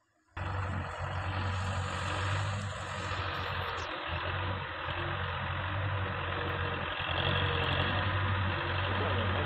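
Diesel tractor engine running steadily with a deep, even hum; it cuts in abruptly just after the start.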